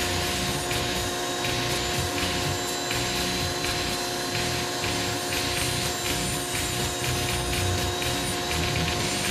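Foredom flex-shaft rotary tool with a carbide burr grinding white cedar, a rasping cut that comes and goes in quick strokes over a steady motor whine.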